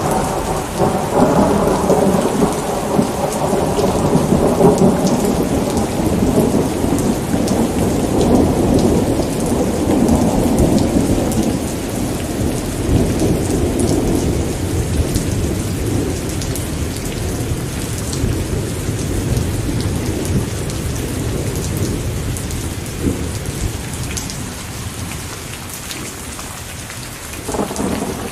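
Rain falling steadily in a thunderstorm. A long roll of thunder rumbles and slowly dies away over about fifteen seconds, and a new thunderclap starts near the end.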